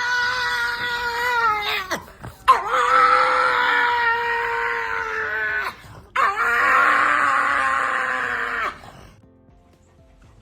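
A dog howling: three long, drawn-out howls, each held on a steady pitch for two to three seconds, with short breaks between them.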